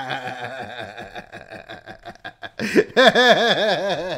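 A man laughing in quick, rhythmic bursts that trail off, then breaking into a louder run of laughter a little under three seconds in.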